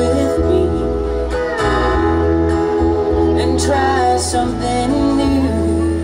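A live country band playing: acoustic guitar, electric bass and drums, with a lead melody of sliding, held notes over them.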